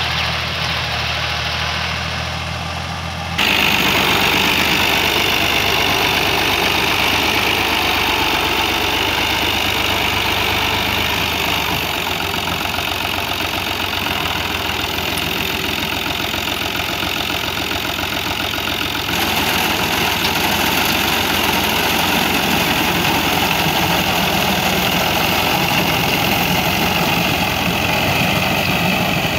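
Al Ghazi tractor's diesel engine running steadily as it drives a front-mounted reaper cutting wheat. The sound jumps louder about three seconds in and changes again a little past halfway.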